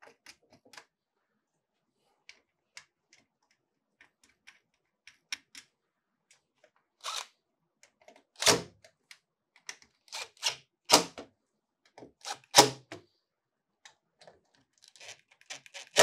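Light clicks and taps as a ceiling fan blade and its screws are set in place, then several short bursts from a DeWalt cordless impact driver in the second half, driving the blade's fastening screws home.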